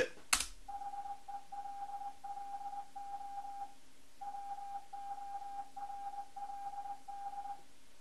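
Morse code of "HELLO WORLD" from the Linux morse program, played through computer speakers and picked up by a microphone: a single steady beep keyed on and off in dots and dashes, with a longer pause about halfway at the gap between the two words. A short click comes just before the tones start.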